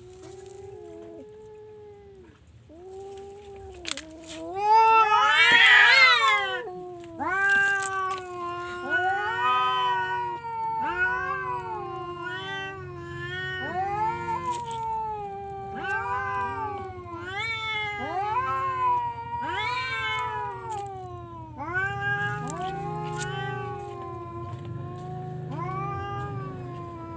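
Cat yowling: a near-continuous run of drawn-out meows, each rising and falling in pitch, loudest about five seconds in.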